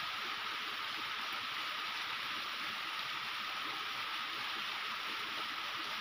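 Small mountain waterfall splashing onto rocks and running off as a stream: a steady rush of falling water.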